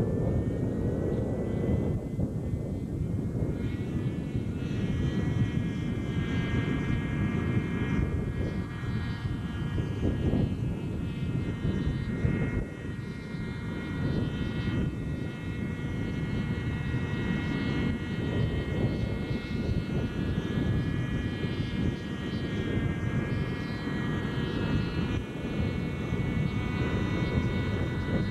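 Radio-controlled 550-size NOTAR model helicopter running in flight, a steady high whine of engine and rotor. The whine climbs in pitch over the first couple of seconds and then holds steady.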